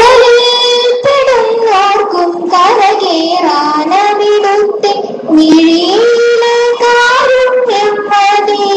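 A girl singing solo into a handheld microphone, holding long, drawn-out notes that step up and down in pitch, with short breaks for breath.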